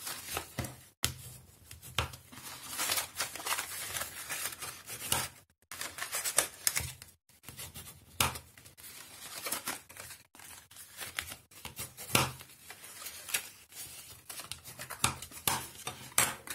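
White cardstock being folded and creased with a bone folder: irregular paper rustles and scraping strokes as the sheet is handled and the folds are pressed down.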